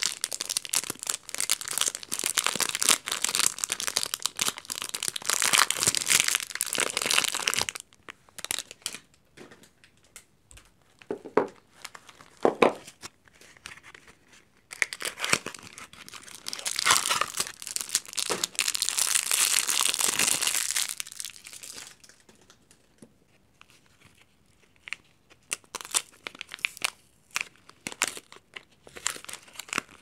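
Soap wrappers, plastic film and a cardboard soap box, crinkled and torn open by hand. There are two long stretches of dense crinkling, at the start and again past the middle, with quieter rustles and clicks of handling between them and near the end.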